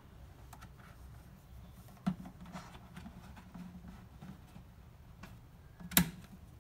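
Hands fitting the plastic cap onto a Mercedes W210 washer fluid reservoir: faint rubbing and tapping of plastic on plastic, with a short knock about two seconds in and a sharper, louder plastic click near the end.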